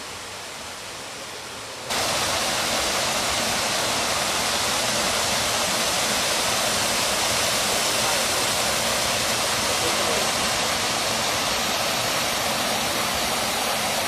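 Waterfall pouring over rock into a pool: a steady rush of falling water that suddenly gets louder about two seconds in.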